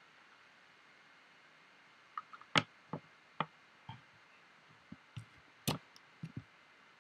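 About a dozen short, irregular clicks and taps from a computer mouse and keyboard, the loudest a little over two and a half seconds in, over faint room hiss.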